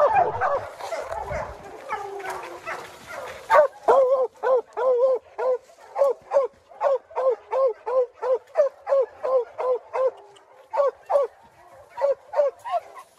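Brindle hound baying a black bear at close range: drawn-out, bending bawls at first, then from about four seconds in a fast, steady run of short chop barks, roughly three a second.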